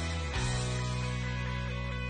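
Background music: a sustained guitar-led instrumental, chords changing about half a second in.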